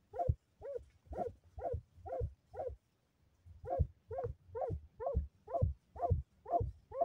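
Hunting dog barking steadily from inside a burrow, about two barks a second with a short pause partway through. It is baying at a paca it has cornered underground and is fighting.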